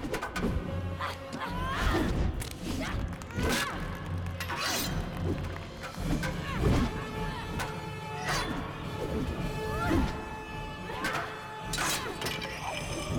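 Film soundtrack of a blade fight: metal blades clashing again and again, sharp strikes with a short ring, over background music.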